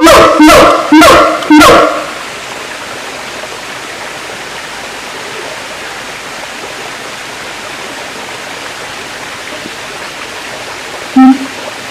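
Siamang calling: a quick run of three or four loud, barking calls that stops about two seconds in. After that only a steady hiss, then one short, low call near the end.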